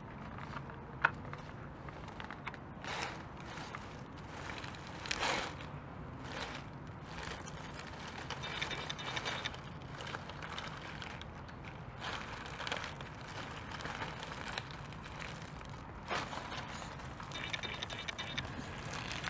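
1/10 scale RC rock crawler with a Fusion Pro brushless motor crawling through ivy and dry leaves: leaves crackle and rustle under the tyres, with a sharp click about a second in. The motor and drivetrain whine in two short spells, one near the middle and one near the end.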